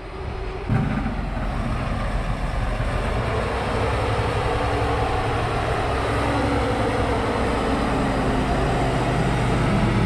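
Heavy farm tractor engine running on a silage bunker. It picks up sharply just under a second in, then holds a steady, building drone.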